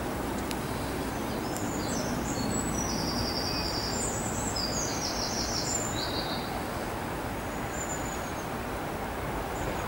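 Steady wind noise on the microphone, with a small songbird singing a run of high, rapid trills and chirps through the first half and a few faint chirps later.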